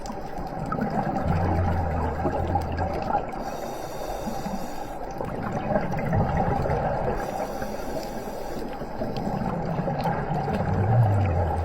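Underwater ambience: a steady watery rush with fine crackling, and a low hum that swells for about two seconds near the start and again briefly near the end.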